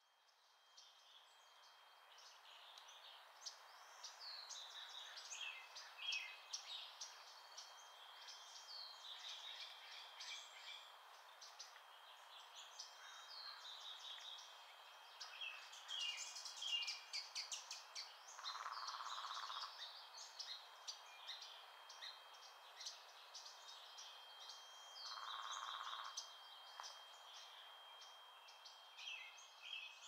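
A chorus of songbirds singing and chirping, many short overlapping calls that fade in at the start, over a thin steady high tone. Two brief buzzy notes come about two-thirds of the way through and again near the end.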